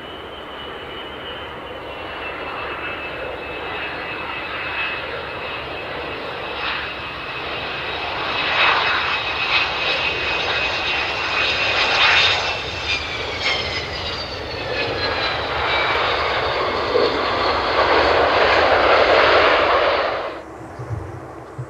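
Boeing 727-200's three Pratt & Whitney JT8D turbofans on landing: a loud jet roar with a high whine that drops in pitch, building louder through touchdown and the rollout, then cutting off abruptly near the end.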